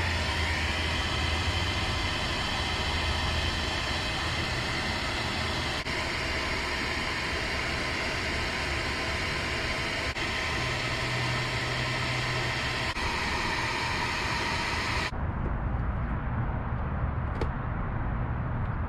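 Hair dryer blowing steadily, heating the old emblem's double-sided tape to soften it for removal; it is switched off about fifteen seconds in, leaving a low rumble.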